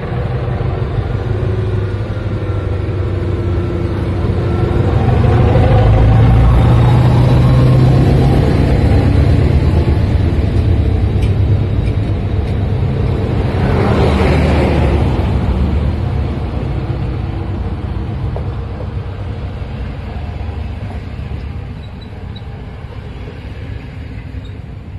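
SM42 diesel-electric locomotive hauling a double-deck passenger train, its diesel engine working under load with a low, steady drone that is loudest about six seconds in. The coaches then roll past with a swell of wheel-on-rail noise about fourteen seconds in, and the sound fades steadily as the train moves away.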